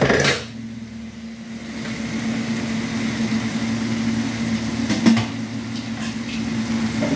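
Food frying in a wok on a gas stove: a steady hum under a hiss that builds after the first couple of seconds. It opens with a clatter of metal pans in the sink and has a single knock about five seconds in.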